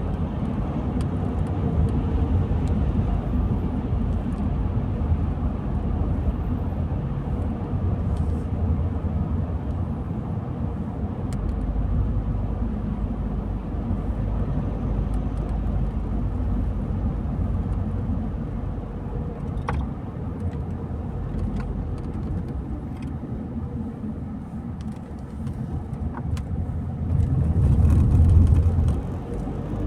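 A car driving along a road: steady low rumble of tyre and engine noise, with a few faint ticks, swelling louder for a couple of seconds near the end.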